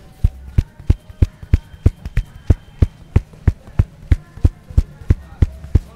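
A barber's hands striking a man's head in a rapid percussive head massage: sharp, even slaps or thumps, about three a second.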